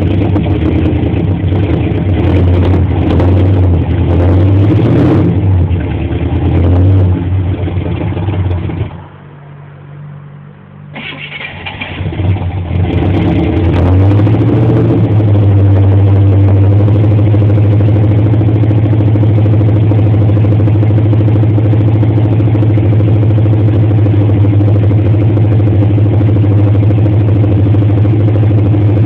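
1986 Oldsmobile Cutlass engine running steadily shortly after a cold start. About nine seconds in, its sound drops away sharply for about two seconds, then comes back and builds over a few seconds to a steady, loud run.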